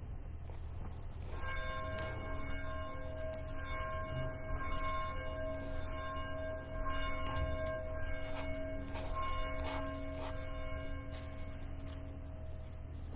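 A bell rung repeatedly, roughly once a second. Its several tones ring on between strikes, begin about a second in and die away near the end.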